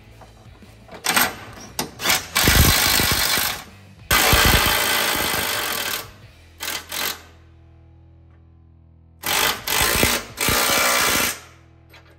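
Impact wrench running nuts down on the transmission crossmember bolts, in three bursts of rapid hammering a few seconds apart, with a few short clicks between them.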